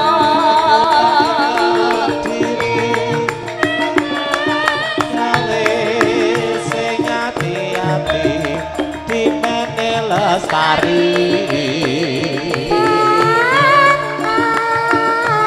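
Javanese gamelan (karawitan) ensemble playing, with a female singer's voice wavering above struck metallophone notes and drum strokes. A deep gong note sounds about eight seconds in.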